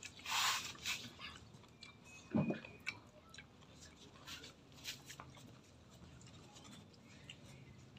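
A person eating by hand, chewing and crunching food with scattered wet mouth clicks. There is a short breathy hiss near the start and a brief voiced sound about two and a half seconds in.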